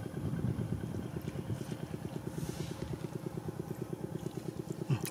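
A small engine running steadily at idle, a fast, even putter of low beats.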